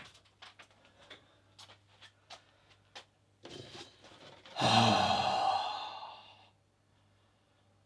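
A man's long, exasperated sigh, a loud breath out that lasts about two seconds and fades away, coming after a few faint clicks of handling.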